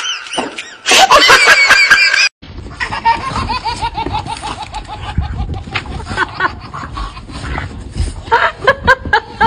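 For about two seconds, a high, wavering voice. After a sudden cut, a baby laughs in a long run of quick giggles, about five a second, falling slightly in pitch, with a low wind rumble on the microphone. The giggling picks up again near the end.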